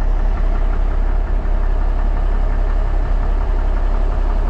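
Dump truck's diesel engine idling steadily with a deep, even rumble.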